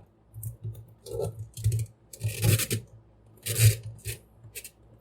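Plastic toy figure being handled and posed: irregular scrapes and clicks from its parts and joints, with two louder scraping rustles around the middle.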